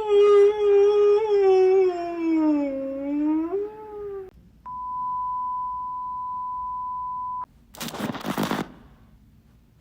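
A long wavering wail, like a howl, that dips in pitch and rises again for about four seconds. It is followed by a steady electronic beep lasting about three seconds, and then by a short scraping rasp near the end.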